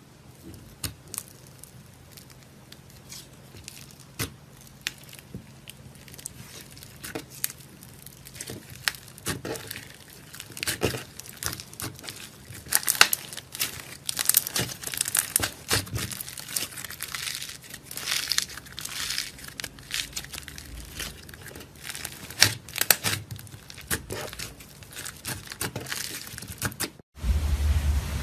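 Slime being pressed, squished and stretched by hand, giving a dense run of small clicks, pops and crackles that grows busier and louder in the middle. Near the end the sound cuts to a louder, steadier noise with a low hum.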